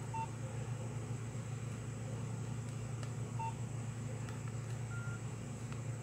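Nokia 1680 classic phone giving short electronic beeps. Two identical short beeps come near the start and about three and a half seconds in, and a slightly higher, longer one follows about five seconds in, over a steady low hum.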